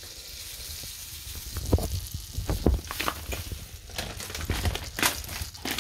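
Butter sizzling as it melts in a frying pan, a steady faint hiss, with a few scattered clicks and knocks over it.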